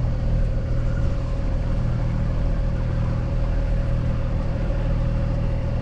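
Sailing catamaran's engine running at a steady speed as the boat motors along, a constant low hum with a steady whine above it.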